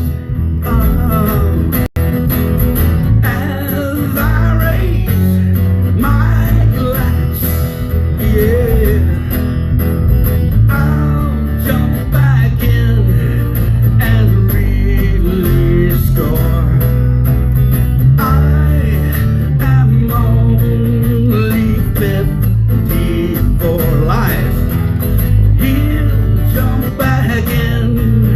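Live guitar music in a blues-country style: strummed chords under a bending lead melody line, played as an instrumental break in the song.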